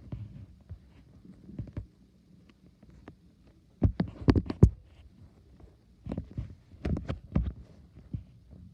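Fireworks going off in the distance: irregular bangs and pops, a dense cluster about four seconds in and another from about six to seven and a half seconds in, over a low rumble.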